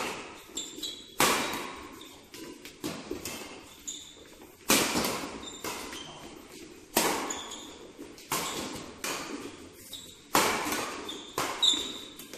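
Badminton doubles rally: about a dozen sharp racquet strikes on the shuttlecock, roughly one a second, each ringing briefly in the hall, with short high squeaks between them, typical of shoes on the court mat.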